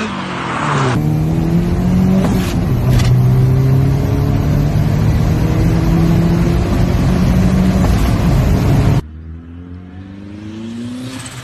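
Car engine accelerating and running hard, its pitch rising and then holding, with two sharp clicks a few seconds in. It cuts abruptly about a second in and again near the end, where a quieter engine takes over with a rising pitch.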